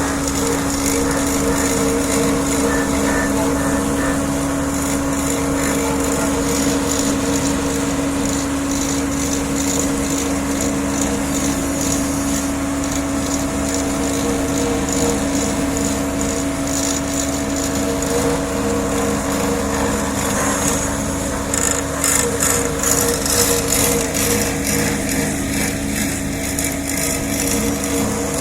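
Diesel road-paving machinery running steadily, a constant engine hum with a held whine over it, and rougher clattering about three quarters of the way through.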